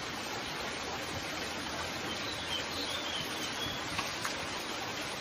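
Steady rush of running water, with a few faint high chirps near the middle.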